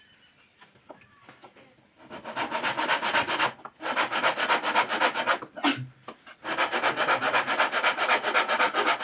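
Wood being hand-abraded with quick back-and-forth strokes, several a second. The strokes start about two seconds in and stop briefly twice.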